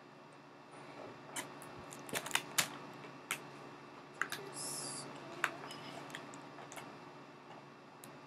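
Toy packaging being handled and opened: scattered small clicks and taps, with a brief rustle about halfway through.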